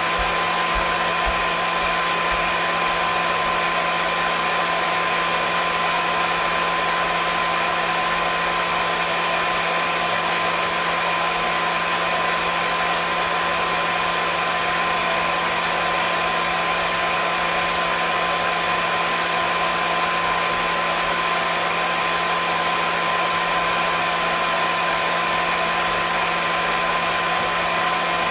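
Hair dryer running continuously at a constant speed: a steady blowing rush of air with a fixed motor whine, unchanging in level.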